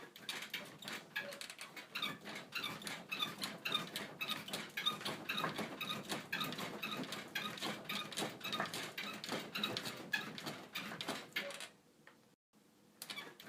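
A bed frame creaking and squeaking over and over in quick succession, with a brief break near the end.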